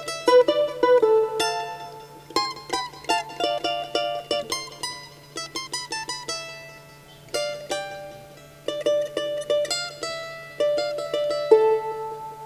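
Ayala charango, a small Andean lute with double-strung courses, played solo: a melody of plucked single notes and quick runs, quieter for a stretch around the middle. A faint steady low hum sits underneath.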